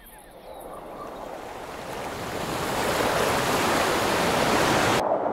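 Rushing river water: a steady hiss that fades in and grows louder over the first three seconds, then loses its high end suddenly near the end, leaving a duller rush.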